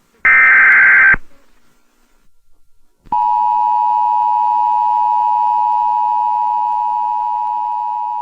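Emergency Alert System tones. First comes a one-second burst of screechy digital SAME header data, the same as the burst just before it. Then, after about two seconds of quiet, the EAS attention signal starts about three seconds in: a steady two-tone beep, held and slowly fading.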